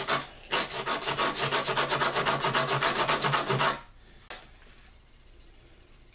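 Turkey wing bone rubbed quickly back and forth on a sheet of sandpaper to sand it down, a fast, even run of rasping strokes that stops abruptly after about three seconds. A single light click follows.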